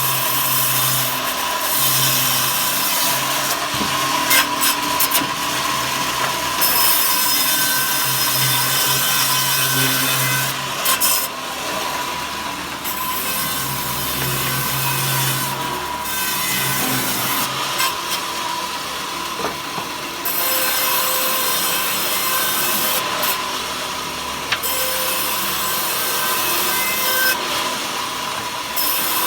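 A saw cutting lengthwise through wood to make thin slats: a continuous rasping cut over a steady high whine, with the cutting noise dropping out briefly several times.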